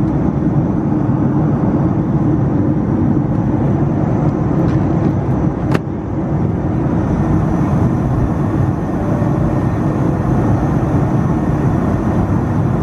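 Airliner cabin noise: a steady, loud low rumble, with a single sharp click about halfway through.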